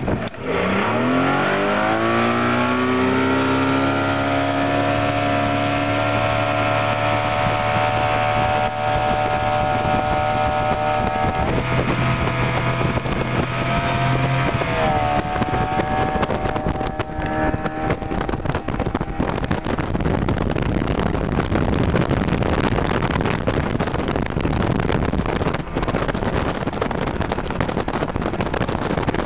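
Mercury 115 hp outboard motor accelerating the boat: its pitch climbs over the first few seconds, then holds steady at speed. In the second half, the rush of water and wind on the microphone grows and covers the engine.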